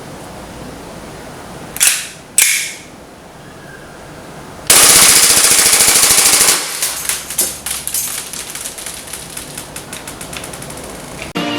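WE Glock 18C gas blowback airsoft pistol firing: two single shots about half a second apart, then a couple of seconds in, a long full-auto burst. The burst trails off into a ragged, thinning string of weaker shots.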